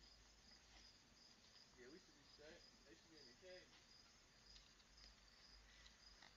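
Near silence, with faint, steady, high-pitched insect chirping.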